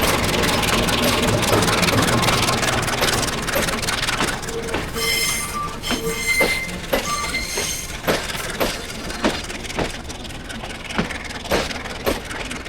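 Passing train: a dense rumble, then about every half-second a sharp clack of wheels over the rail joints as the wagons roll by. A few brief high squeals from the wheels come around the middle.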